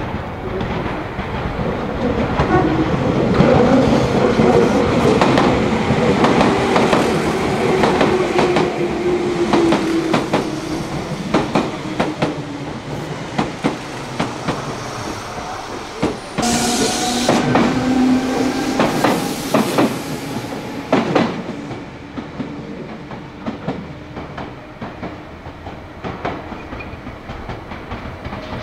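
Meitetsu electric trains running through a station, wheels clattering over rail joints, loudest in the first half. A short loud hiss comes about sixteen seconds in.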